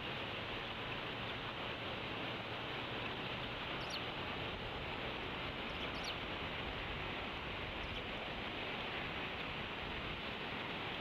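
A few faint, thin, high peeps from a bald eaglet begging for food, two of them close together midway, over a steady background hiss.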